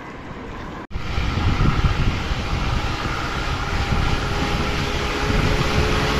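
Steady rushing road noise with a low rumble, as from riding along a road among traffic. It starts abruptly about a second in and slowly gets louder.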